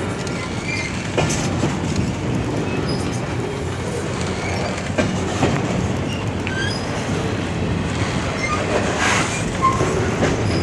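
Empty intermodal well cars of a freight train rolling past close by: a steady rumble of steel wheels on rail, with scattered short wheel squeals and a few sharp clicks.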